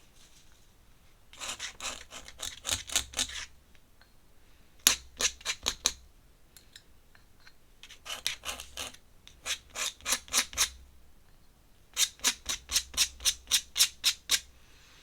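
Pen scratching rapidly back and forth on paper in four short bursts of about six strokes a second.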